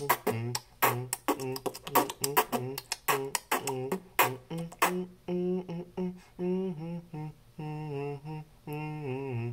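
Beatboxing: rapid mouth-made drum clicks and snaps woven with a pitched vocal bass line, giving way about five seconds in to a mostly melodic vocal line with little percussion.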